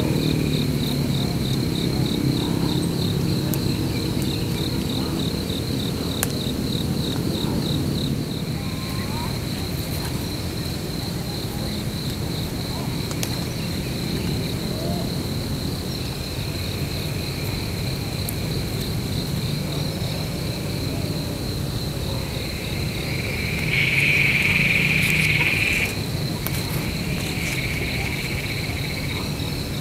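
Insects calling: a steady high trill that pulses rapidly for the first several seconds, with a second, lower buzz coming and going and loudest for about two seconds near the end.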